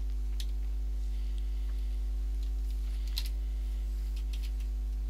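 A few computer keyboard keystrokes, the sharpest cluster about three seconds in, over a steady low electrical hum.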